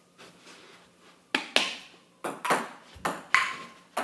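Table tennis rally: a ping-pong ball clicking sharply off the paddles and the table about seven times in quick succession, starting about a second in, some hits leaving a short ring.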